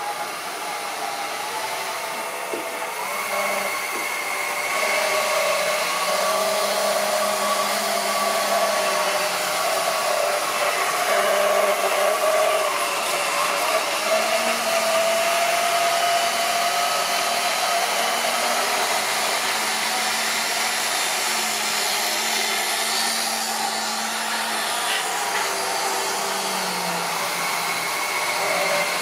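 Model railway train running on the layout: a steady electric-motor whine whose pitch drifts slightly. It grows louder a few seconds in as a train of coaches passes close by, then eases a little near the end.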